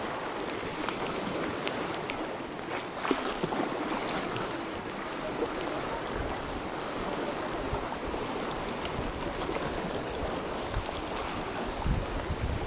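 Sea waves washing against a rocky shore, a steady surf noise, with wind buffeting the microphone in low thumps, strongest near the end.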